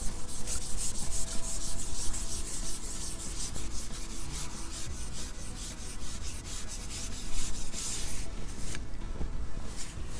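Wind rumbling on the microphone, with a rapid run of scratchy rustles of coat fabric rubbing close to it. The rustling stops about nine seconds in.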